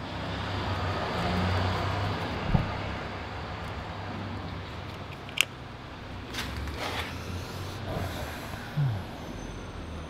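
Steady low rumble of parking-garage background noise, with two sharp clicks about two and a half and five and a half seconds in from a hex key working the screw of a handlebar control clamp.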